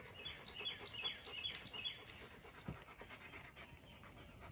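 Adult Rottweiler panting, fairly quiet, with a quick run of short high chirps in the first two seconds.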